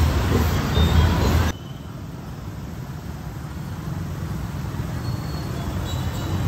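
Outdoor city street ambience with traffic noise. A loud low rumble for about the first second and a half cuts off suddenly, leaving a quieter, steady background.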